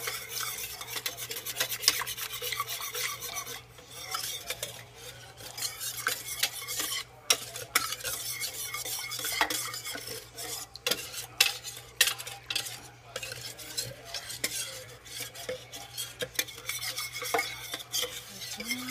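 Metal wire whisk beating curry powder into coconut milk in a slow cooker's glazed stoneware crock: quick, continuous scraping with sharp ticks as the wires strike the pot, over the wet churn of the liquid.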